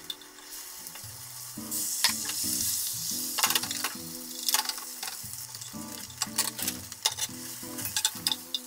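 Beaten egg sizzling in a hot oiled rectangular tamagoyaki pan as a rolled omelette cooks, the sizzle swelling loudest for a couple of seconds about two seconds in. Chopsticks tap and scrape against the pan now and then, over soft background music.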